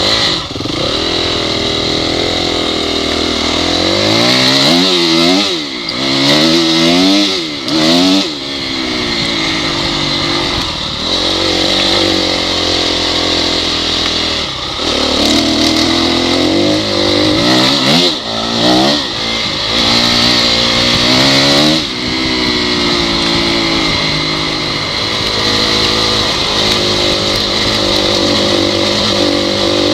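Honda CRF dirt bike's single-cylinder four-stroke engine running hard under throttle, its pitch climbing and dropping repeatedly as it revs up and shifts. There are several quick rev-and-shift cycles in the first third and again around the middle.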